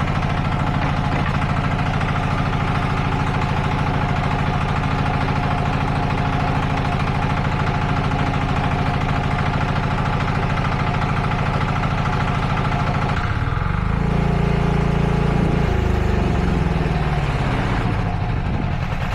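Mini skid steer's engine running steadily. About 13 seconds in, its note changes as the throttle is moved, and near the end the pitch falls.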